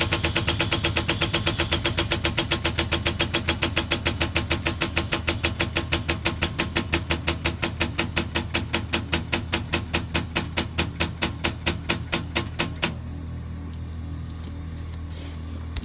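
Air-powered jack pumping in rapid, even strokes, about six a second at first and slowing to about four a second, then stopping suddenly about 13 seconds in. A steady low hum remains after it stops.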